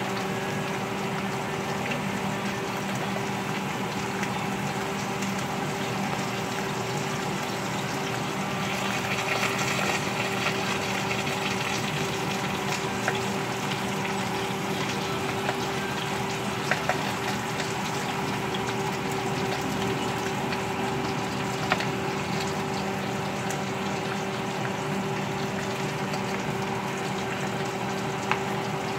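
Potato and sweet potato slices sizzling in hot oil in a skillet over a steady low hum, the sizzle swelling briefly about nine seconds in. A few light clicks of tongs against the pan.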